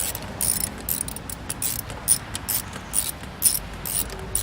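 Hand ratchet clicking in quick repeated strokes, about three or four a second, as the intake plenum bolts are run down snug.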